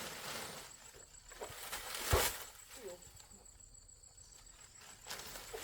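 Scuffing and scraping of someone climbing, with one heavy thump about two seconds in and more scuffs near the end; a faint steady insect trill runs underneath.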